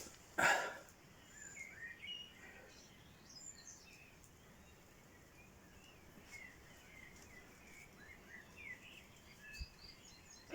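Birds chirping faintly and intermittently in the background, with a short scraping noise about half a second in.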